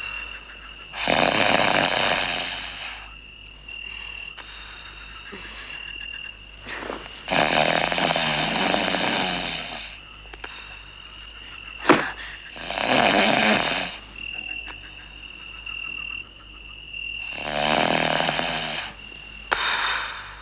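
A sleeping person snoring loudly: four long, noisy snores a few seconds apart.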